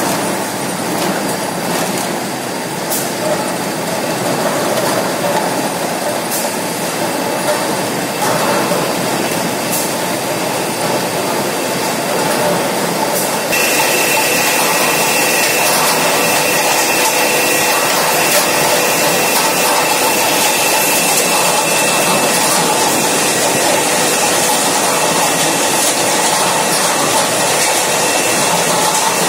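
Rotary PET bottle unscrambler running: a steady, loud mechanical din of the turning disc, with empty plastic bottles rattling against each other and the steel bowl. About halfway through, a steady high whine joins in.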